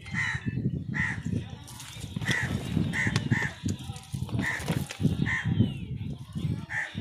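Crows cawing: about eight short caws at irregular intervals, over a continuous low background noise.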